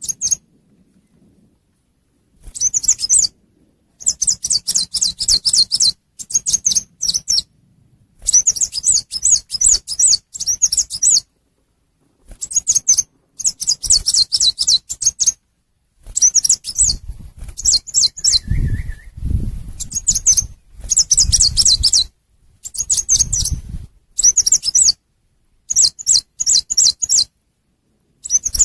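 Lure-call recording of the chim sâu xanh, a small songbird: rapid, high, thin twittering chips in bursts of one to two seconds, broken by short silent gaps. A low rumble sits under a few bursts near the middle.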